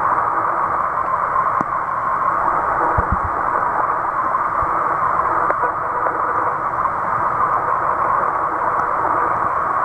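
Steady muffled hiss of water heard with the camera submerged, with a couple of faint low knocks about three seconds in.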